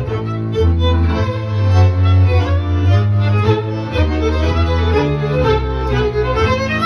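Violin, bowed double bass and piano accordion playing live together, the violin carrying the melody over long held bass notes.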